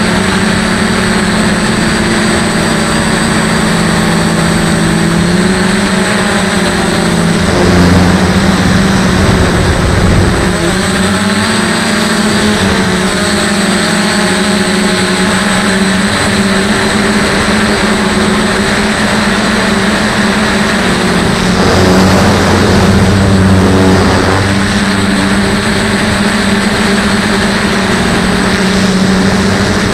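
DJI F450 quadcopter's four motors and propellers buzzing steadily, heard from on board. The pitch and loudness shift with the throttle, rising about eight seconds in and again about 22 seconds in.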